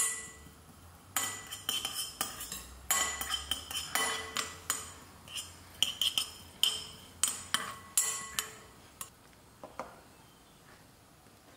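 Metal spoon stirring sesame seeds in a glass mixing bowl, scraping and clinking against the glass, with a short ring after some of the knocks. The stirring stops about nine seconds in.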